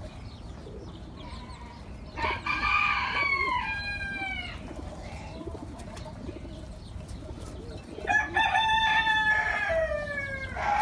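A rooster crowing twice, each crow a long drawn-out call that falls in pitch at the end, about six seconds apart.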